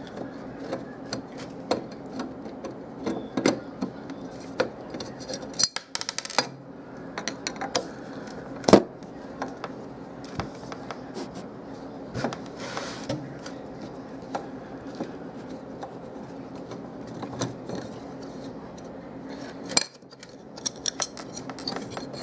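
Screwdriver clicking and scraping on small steel screws and a car stereo's sheet-metal case as the screws are backed out, with light metallic clinks and one sharper knock about nine seconds in.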